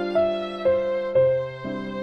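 Instrumental background music: a melody with a new note about every half second.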